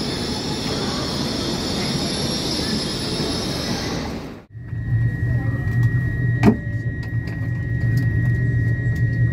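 Busy railway platform beside a standing intercity train: crowd murmur with a steady high hiss. About halfway it cuts to inside the train carriage, where a steady low hum and a thin high whine run, with one sharp knock about two seconds after the cut.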